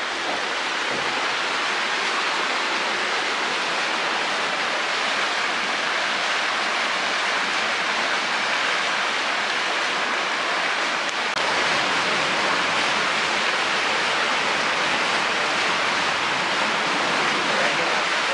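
Row of small fountain jets splashing in a shallow pool: a steady rush of falling water, a little louder about two-thirds of the way through.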